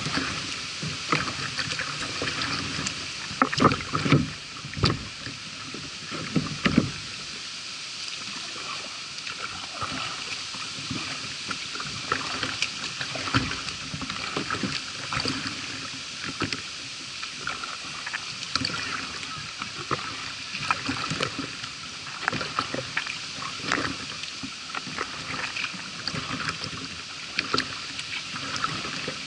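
A kayak being paddled through floodwater: irregular splashes and drips from the paddle strokes over a steady hiss, with the loudest splashes in the first few seconds.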